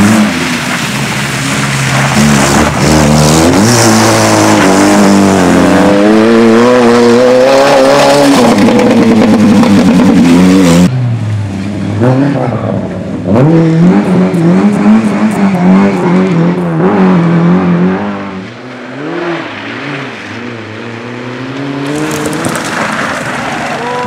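Amateur rally cars, Lada saloons among them, driven hard one after another: engines revving at full throttle, pitch climbing and dropping through gear changes. The engine sound changes abruptly about 11 seconds in, and again near the end, as a different car takes over.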